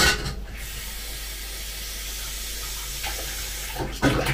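Kitchen tap running steadily into a sink, with a short clatter of kitchenware at the start and again near the end.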